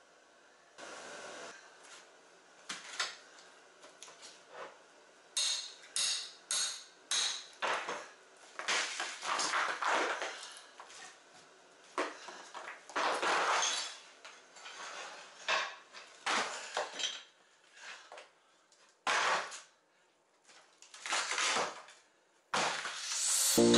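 Ceramic floor tile being broken up with a hammer: irregular sharp hits and the clinking clatter of broken tile shards, some blows in quick runs of three or four. Music comes in just before the end.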